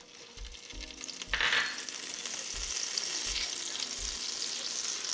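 Butter and oil sizzling as they melt in a hot stainless-steel slow-cooker insert set to sear, stirred with a wooden spatula. The sizzle comes up about a second in and then holds steady.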